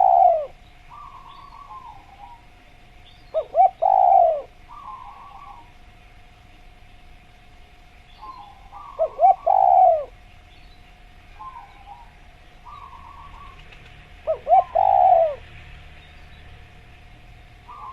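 Spotted doves cooing: four loud phrases about five seconds apart, each a couple of short notes then a longer falling coo. Fainter calls come between them, over a faint steady tone.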